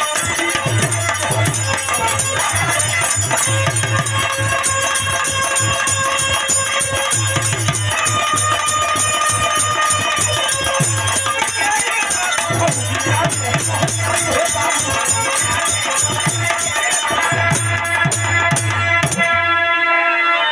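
Instrumental passage of Bhojpuri birha folk music: a pulsing drum beat under a fast, steady rattling percussion and sustained melody tones. The drum beat drops out near the end.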